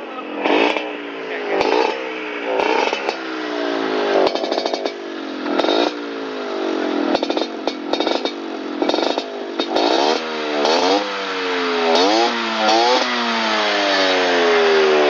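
Motorcycle engine through an aftermarket "udang cincin" exhaust, revved in repeated bursts. Each time the engine speed shoots up, it then falls away with a crackly, rasping note. Toward the end the falls in engine speed stretch out longer.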